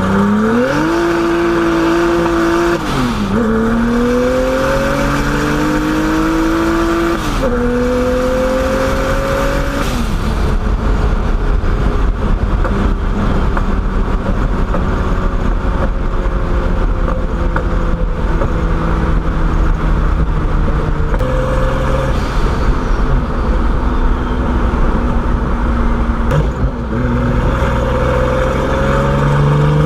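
Turbocharged BMW E30 engine pulling hard: its pitch climbs, drops abruptly as the driver shifts up, twice in the first ten seconds, then settles lower and eases off with heavy road rumble. It picks up again near the end.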